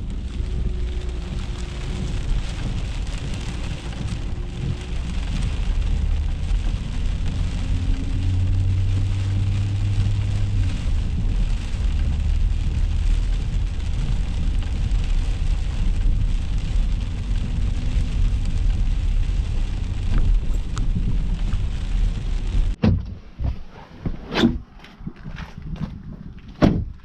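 Loaded grain truck driving, heard from inside the cab: a steady low engine and road rumble. Near the end the rumble stops and a few sharp knocks follow.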